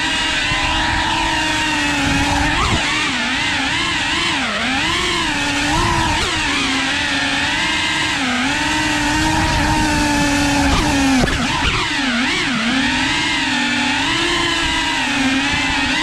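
FPV quadcopter's motors and propellers whining, the pitch rising and falling constantly as the throttle changes.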